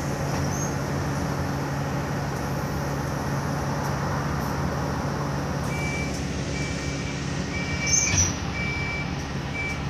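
Alexander Dennis Enviro400 diesel bus engine running steadily under way, heard from inside the passenger saloon as a constant low hum. From about six seconds a short high beep repeats about five times, with a brief knock near eight seconds.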